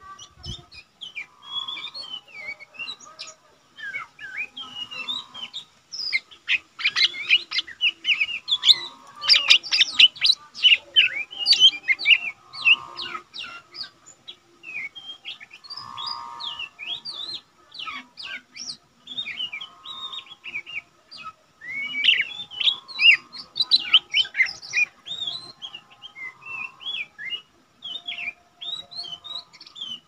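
Male lesser green leafbird singing a fast, varied run of chirps and whistles, busiest a fifth of the way in and again about three quarters through.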